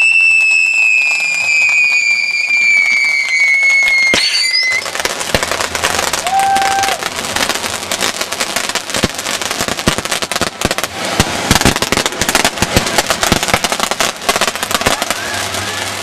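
Consumer fireworks in a finale: a loud firework whistle sliding slowly down in pitch ends abruptly about four seconds in. It gives way to dense, continuous crackling and popping from the fountains and firecrackers.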